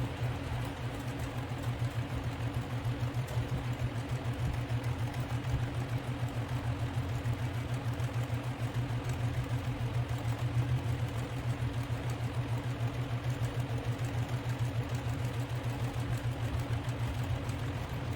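Electric sewing machine running at a steady speed, stitching a straight seam: a continuous motor hum with a rapid, even needle rhythm.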